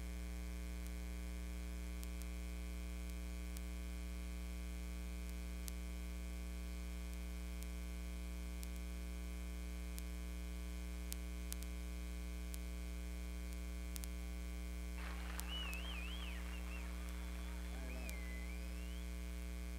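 Steady electrical mains hum with its buzzing overtones on an old news videotape's audio track, with no programme sound over it. From about fifteen seconds in, faint warbling sounds come and go for a few seconds beneath the hum.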